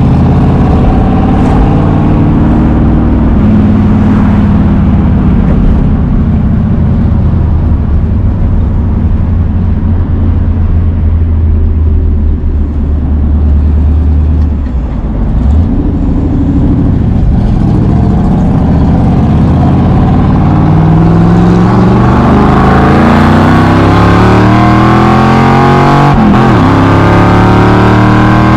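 Carbureted 1965 Ford Mustang Fastback's engine heard from inside the cabin while driving. It holds a steady note for about the first half, dips briefly near the middle, then pulls harder with its pitch climbing steadily through the last third as the car accelerates.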